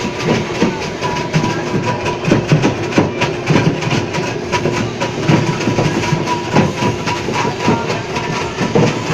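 Electric ice block crusher machine running and crushing a block of ice: a dense, irregular rattle of crunching ice over a steady motor hum.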